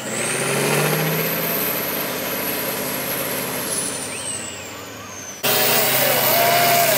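Big diesel engine of a 6x6 trial truck labouring under heavy throttle through a mud pit, with a high whine that rises, holds and then falls. About five seconds in the sound jumps suddenly louder and closer.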